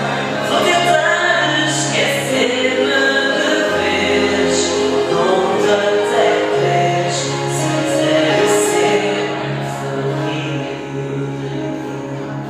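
A woman singing into a microphone over backing music, with long held notes.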